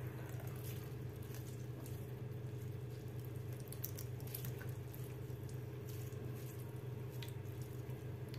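Hands squeezing the juice out of salted grated zucchini: faint squelches and juice dripping and trickling into a plastic bowl, over a steady low hum.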